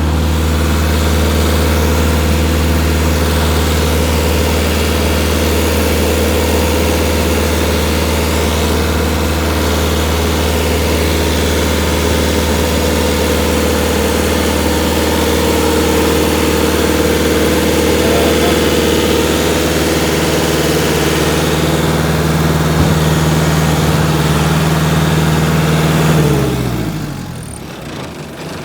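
Heavy machine's engine running close by at a steady speed, then winding down near the end as the throttle is pulled back or the engine is shut off.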